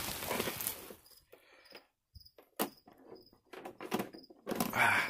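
Bubble wrap crinkling and rustling as it is pulled off a boxed fan, with short clicks and handling knocks in between. It is dense at first, then comes in separate bursts, and the loudest burst is near the end.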